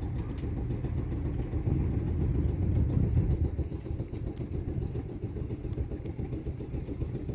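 Boat engine running steadily: a low, even rumble with a faint regular mechanical ticking above it.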